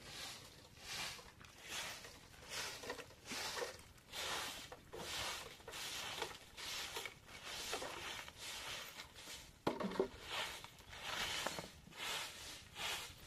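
Bunches of leafy branches swept over a dirt floor in a regular rhythm, a little more than one brushing stroke a second. One sharp knock comes about ten seconds in.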